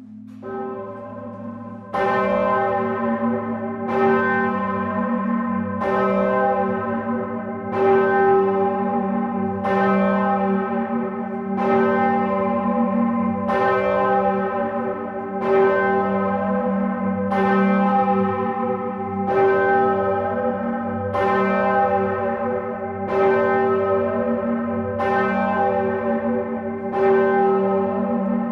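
Large bronze Grassmayr church bells swinging in the belfry, heard from inside the tower. Clapper strokes come about every two seconds, loud from about two seconds in, with a deep hum ringing on between strokes.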